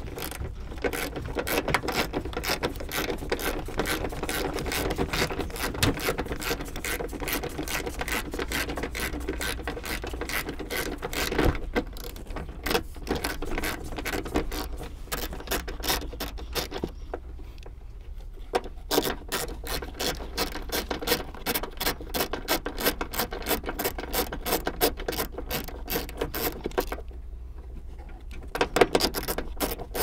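Hand ratchet with a 14 mm socket clicking rapidly as it unscrews a seat-belt anchor bolt. The clicking pauses briefly twice.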